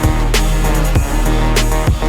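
Background workout music with a steady beat: a deep kick drum about twice a second under sustained bass and synth tones.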